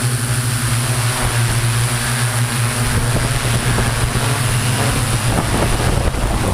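Multirotor drone's motors and propellers running with a steady hum and rushing noise.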